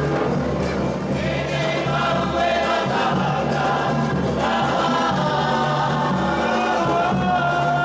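A group of voices singing together in chorus over steady music.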